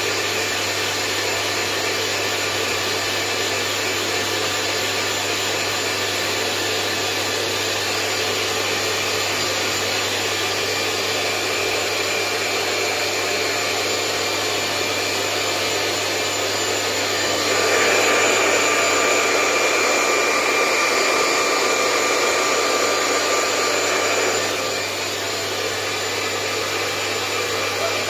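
Hair dryer running steadily. For several seconds past the middle it gets louder, with a higher whine, then drops back.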